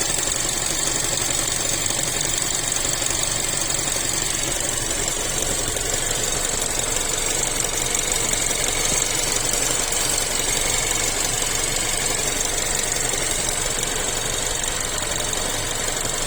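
Chery Tiggo 7 Pro Max engine running steadily with a fast, even knocking. It is an intermittent knock that logs no fault codes, and the owner places it near the robotized gearbox.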